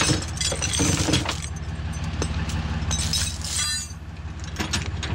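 Metal tow gear clanking and rattling in a few bursts as it is handled at the back of a wrecker, over the steady idle of the truck's engine.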